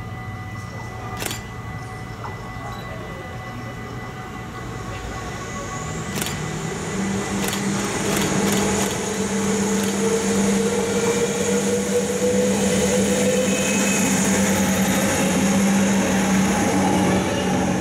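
NS DM '90 'Buffel' diesel multiple unit approaching and running past, its diesel engine drone and wheel-on-rail noise growing steadily louder as it nears, with a slowly rising tone over a steady hum.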